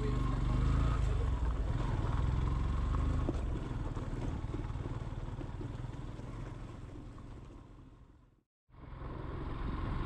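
Yamaha 150 cc single-cylinder motorcycle running as it is ridden along a rough gravel track. The sound fades gradually, cuts out completely for a moment about eight and a half seconds in, then comes back.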